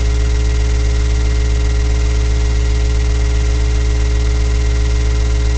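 Loud, steady electrical mains hum in the webcam's audio: a low buzz with a ladder of fixed tones above it and a hiss, unchanging throughout.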